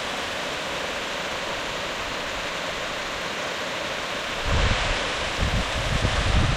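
Steady, even rush of running water. From about two-thirds of the way in, low gusts of wind buffet the microphone.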